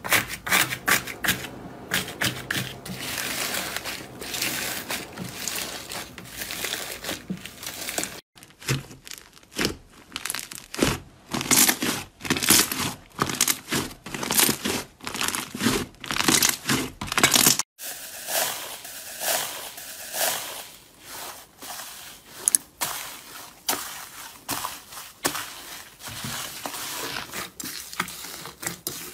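Hands kneading and pressing slime: a dense run of crackling, crinkling clicks. It changes abruptly twice, about eight and eighteen seconds in, as it moves from foam-bead slime to a yellow slime and then to a purple slime with a crunchy crust.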